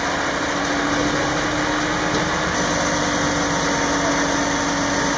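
Fire engine's engine running steadily, a continuous hum under an even noise, with a slight shift in its tone about halfway through.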